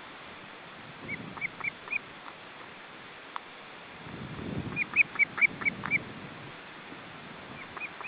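Ospreys calling in runs of short, high chirping whistles: four quick calls about a second in, a louder run of six around five seconds in, and another run starting near the end. Wind rumbles on the microphone, swelling around four to five seconds in.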